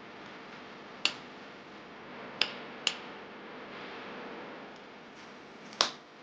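Four short, sharp clicks at uneven intervals, two close together in the middle, over a faint steady hiss.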